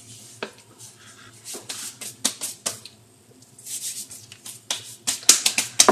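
Crinkly bag of flour being handled: rustling with scattered sharp clicks and taps, turning into a quick run of louder clicks near the end.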